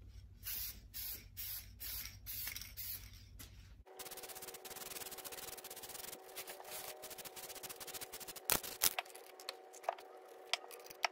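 AC Delco carbon flash aerosol spray can hissing in a quick series of short bursts over the first four seconds. After that a faint steady hum remains, with light rubbing and a few sharp clicks.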